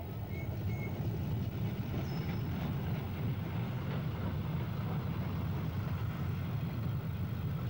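Miniature passenger tram running along its narrow-gauge track: a steady low rumble, with a couple of short high squeaks in the first second.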